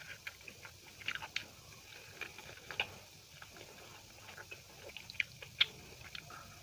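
Close-up sounds of eating: mouth-chewing and lip smacks of soft food such as rice, dal and chapatti, in scattered short clicks with a couple of sharper smacks near the end.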